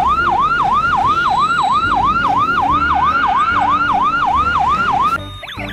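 Police van siren on a rapid yelp, its pitch sweeping up and down about three to four times a second over low traffic rumble. A little before the end it cuts to a quieter, faster warbling tone.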